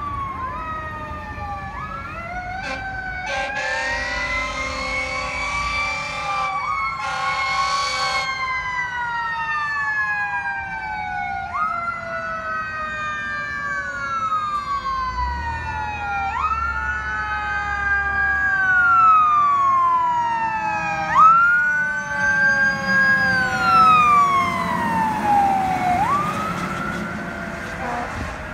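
Fire engine responding code 3, its siren wailing in repeated cycles that rise quickly and fall slowly. Two horn blasts sound between about three and eight seconds in, and near the end the truck's engine and tyres grow louder as it passes.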